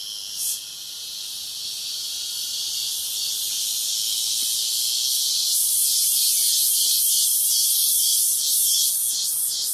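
Cicadas singing: a loud, shrill buzz that swells steadily, turns into a pulsing rhythm of a few beats a second in the second half, then cuts off suddenly at the end.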